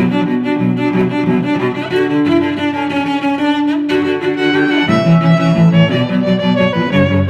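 Background music of bowed strings, violin and cello, playing slow held notes.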